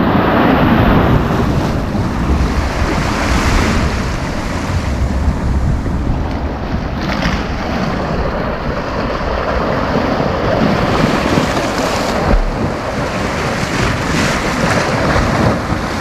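Sea surf breaking and washing on a sandy beach in a continuous rush, with wind buffeting the microphone as a low rumble underneath.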